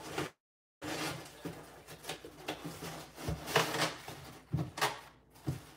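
A cardboard shipping box being handled on a stone countertop: flaps rustling and folding, with several sharp knocks, the loudest about three and a half seconds in. The audio cuts out completely for half a second near the start.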